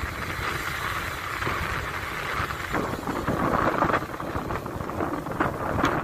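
Small waves breaking and washing up a sandy beach, with wind rumbling on the microphone; the surf swells a few times.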